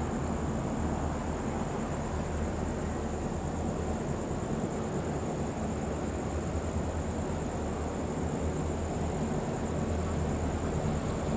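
Diesel locomotive engines running with a low steady rumble as they slowly haul a train of passenger cars, growing a little louder near the end.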